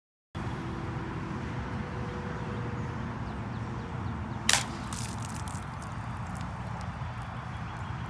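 A single gunshot, a sharp crack about four and a half seconds in with a brief echo, over steady outdoor background rumble.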